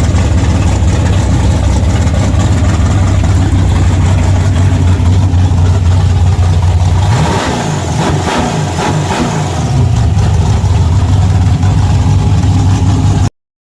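Car V8 engine running at a steady idle, with its pitch rising and falling for a few seconds about seven seconds in, then settling back to idle.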